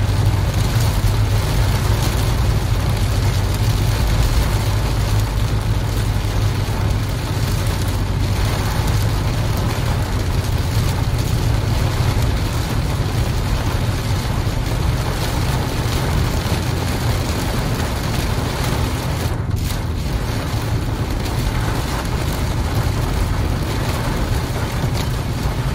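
Steady noise inside a car's cabin on an expressway in a heavy downpour: a low road and engine rumble under an even hiss of rain beating on the car and wet tyres on a flooded road.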